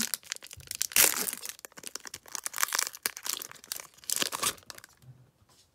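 Foil wrapper of a Panini Prizm trading-card pack crinkling and crackling in irregular bursts as it is handled and torn open. It goes quiet about a second before the end.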